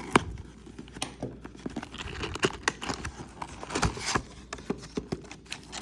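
Hands peeling the seal on a cardboard trading-card hobby box and working it open: a run of small clicks, taps and rustles, with a sharp click just after the start.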